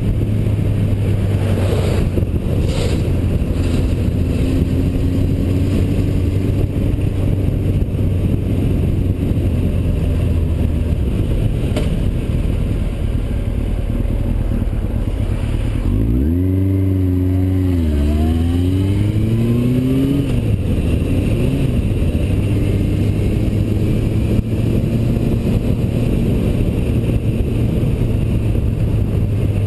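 Yamaha motorcycle engine running steadily at cruising speed, with wind rushing over the microphone. A little past halfway the revs jump up and then climb steadily through the next gear, dipping at each gear change, before settling back to a steady drone.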